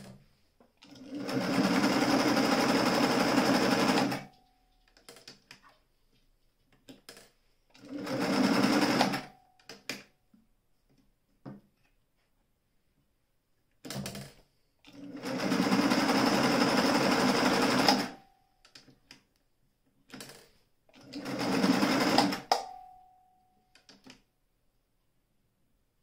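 Singer 449 electric straight-stitch sewing machine stitching in four runs of about two to three seconds each. A short whine trails off as each run stops, and small handling clicks fall between the runs.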